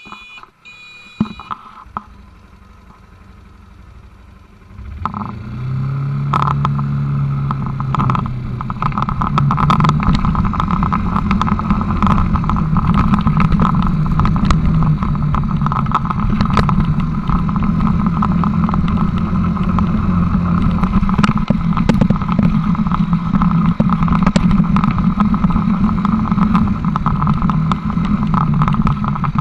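ATV engine running as the quad rides a bumpy dirt track, with frequent knocks and rattles from the rough ground. The engine comes in loud about five seconds in after a quieter start, and its pitch rises a little soon after, then holds steady.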